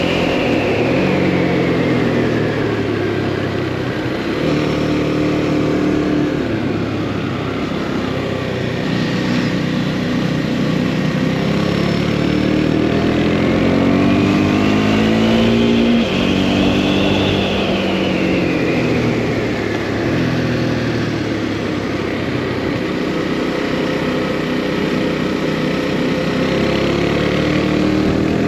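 Motorcycle engine heard from the rider's seat, accelerating and shifting through the gears: its pitch climbs and drops back sharply at each shift, over a steady rush of wind.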